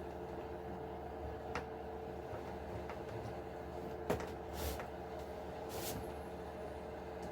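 Steady electrical hum in the background, with small clicks and two short scraping rustles near the middle from hands handling and pulling apart the plastic cage and body parts of an RC truck. The sharpest click comes a little past halfway.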